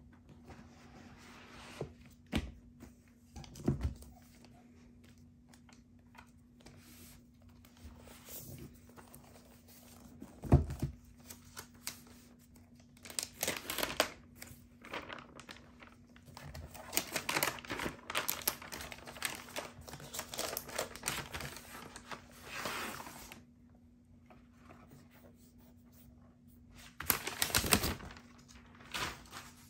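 Packaging being handled: a few soft knocks as the MacBook Air box is opened, the sharpest about a third of the way in. Then several seconds of paper protective wrap crinkling and tearing as it is peeled off the laptop, and a last burst of rustling near the end as the laptop is lifted out. A faint steady hum runs underneath.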